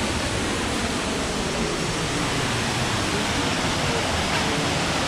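Steady, even rushing of a waterfall running with low water over rocks.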